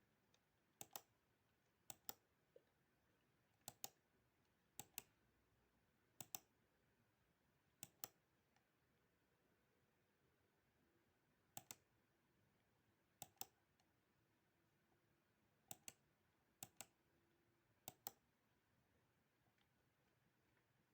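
Faint computer mouse clicks, mostly in quick pairs like double-clicks, coming every second or two.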